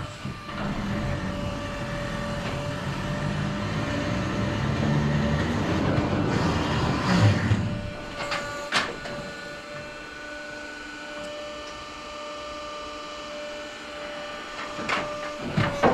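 Stepa hay crane trolley running along its overhead rails with a rumbling clatter that builds up, then stopping with a loud clank about halfway through. After that, a steady hum as the crane's grab arm is let down, with a few knocks near the end.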